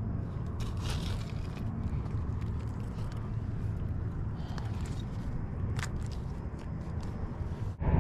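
A knife scraping through soil and dry leaf litter as a wild mushroom is cut and lifted out, with a few brief crackles of leaves, over a steady low rumble.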